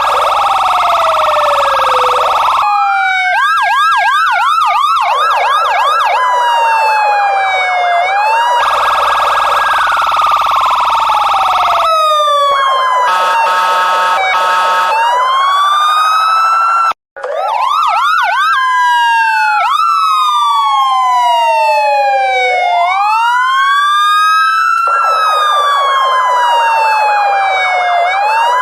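Police car siren sounding loudly and continuously, switching between a slow rising-and-falling wail and a fast repeating yelp, with a short stretch of steady stepped tones partway through. The patterns often overlap, and the sound cuts out for a split second a little past the middle.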